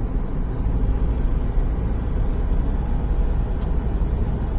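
Steady low rumble of a vehicle on the move: engine and road noise heard from inside, with no break or change.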